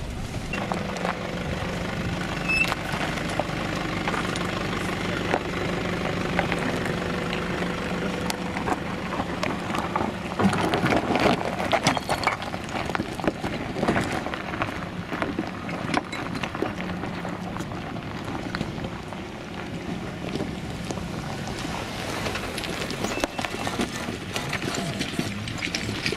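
Nissan Patrol's diesel engine running at low revs as it crawls offroad, a steady drone at first, then a rougher, louder stretch from about ten seconds in as it moves over loose rock.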